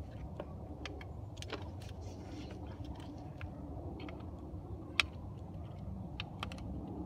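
Scattered small metal clicks and ticks of locking pliers gripping and working a Loctite-held screw on a throttle pedal position sensor, with one sharper click about five seconds in, over a steady low rumble.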